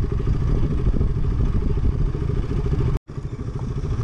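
Motorcycle engine running as the bike rides along a rough dirt track. The sound drops out for a split second about three seconds in, then the engine carries on.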